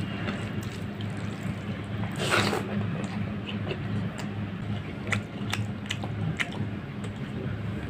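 Eating with the hand: fingers squishing rice and fish curry together, then wet chewing with sharp mouth clicks, over a steady low hum. A louder wet squelch comes a little after two seconds in, and a run of clicks about five to six and a half seconds in.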